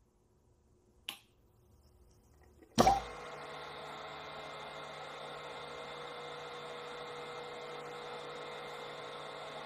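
A small click about a second in, then a sharp clack near three seconds in as the magnetic contactor pulls in and the three-phase induction motor starts. The motor then runs with a steady hum and whine.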